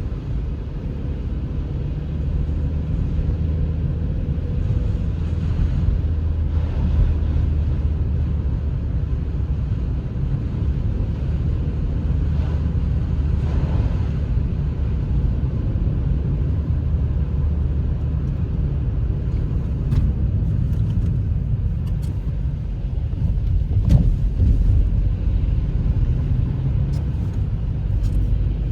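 Car engine idling with a steady low rumble and hum, with a few sharp clicks in the last third.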